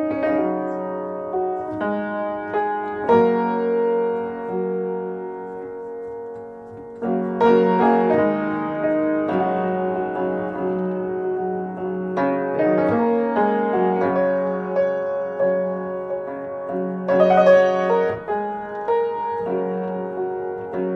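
Background piano music, with struck chords and melody notes that ring on.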